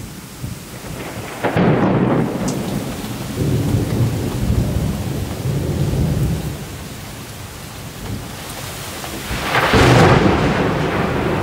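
Thunder in a thunderstorm, with rain falling steadily. A loud peal breaks about a second and a half in and rumbles on for several seconds. A second, louder peal comes near the end.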